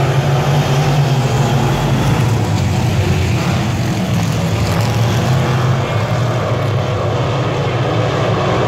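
A field of dirt-track stock cars racing around the oval, their engines running together at speed in a steady, loud drone.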